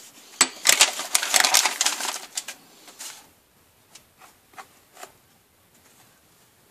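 Handling noise of a wooden coin display box and packing paper: a dense run of rustling and clattering knocks for about three seconds, then a few scattered light clicks.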